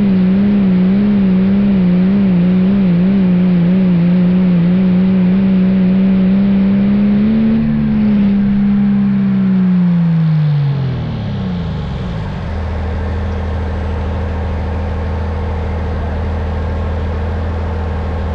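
Cummins diesel in a Dodge Ram pickup running at full throttle under the load of a pulling sled, its pitch wavering slightly. About 8 s in the throttle comes off, and the engine winds down over a few seconds to a steady idle.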